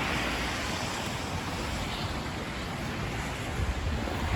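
Steady whooshing hiss of road traffic, tyres on wet, slushy pavement, with low wind rumble on the microphone.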